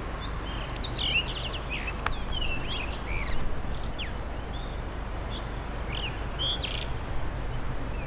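Male blue rock thrush singing: a run of short phrases of whistled notes sliding up and down, over a steady low rumble of strong wind on the microphone.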